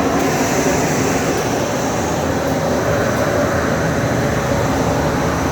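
PE film recycling washing line running: steady, loud machinery noise with a constant low hum.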